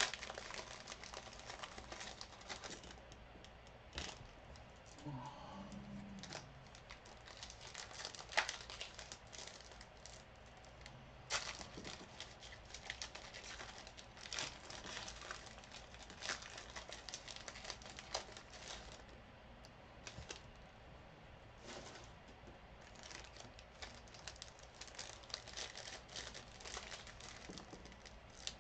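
Wrappers of 2018 Panini Elite football card packs crinkling and tearing as they are opened, with the cards being handled and shuffled. It comes as an irregular run of soft crackles and clicks, with a few sharper ones.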